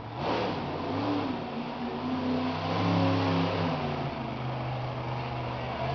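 Monster truck engine revving hard under throttle, its pitch climbing about a second in and easing back after about four seconds.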